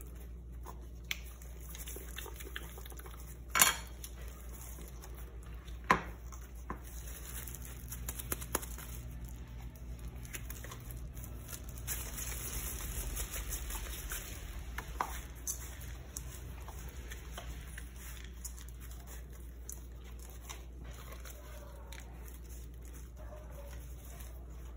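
A plastic measuring spoon knocking and scraping against a glass plate while scooping sticky peanut dough, with a few sharp clicks (the two loudest about four and six seconds in). Soft rubbing of gloved hands shaping the dough runs over a low steady hum.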